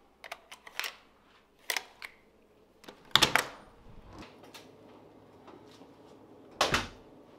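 Hotel room door with an electronic key-card lock: a run of small sharp clicks as the card and lock are worked, then a loud clunk of the handle and latch as the door opens about three seconds in, and another loud clunk near the end as the door shuts.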